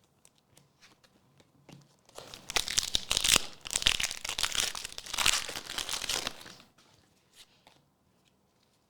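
Foil Pokémon booster pack wrapper being torn open and crinkled: a dense crackle that starts about two seconds in and dies away after a few seconds, with a few light ticks before it.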